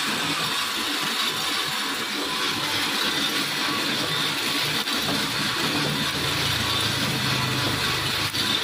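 Small drum coffee roaster discharging freshly roasted coffee beans into its cooling tray: a steady rushing rattle of beans pouring and being swept around by the tray's rotating stirring arm, over the running blower and motors. A low hum grows stronger about six seconds in.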